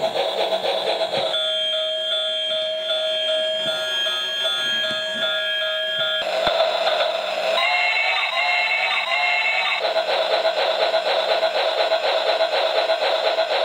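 Toy steam locomotive playing a tinny electronic melody from its built-in sound chip, the tune changing several times.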